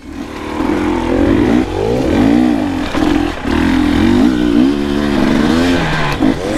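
KTM dirt bike engine revving as the bike pulls away and rides along a trail, its pitch rising and falling again and again with the throttle.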